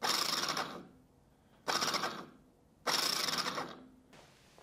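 Small DC motor and its spur gear spinning in three short bursts, powered off a 9-volt battery. Each burst starts abruptly when the wire touches and winds down over about a second.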